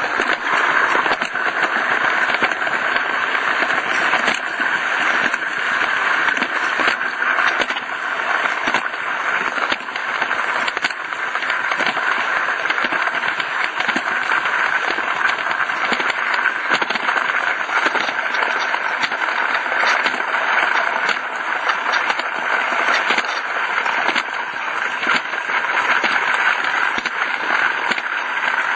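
Live-steam Roundhouse Millie model locomotive running on garden railway track: a steady hiss of steam with rapid clicking and clatter.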